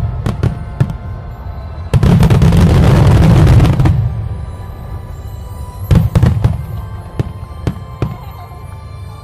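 Fireworks going off: a loud, dense burst of crackling about two seconds in that lasts some two seconds, then a couple of sharp bangs around six seconds and scattered pops after, with music playing underneath.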